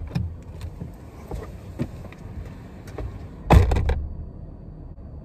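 Toyota 4Runner's driver door as the driver climbs out: a few light clicks and rustles, then the door shut with one loud thump about three and a half seconds in, after which the cabin goes muffled with only a low hum.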